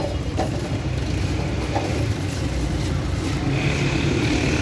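Busy street-stall din: a steady low rumble with a few light clicks, and a brief high-pitched tone near the end.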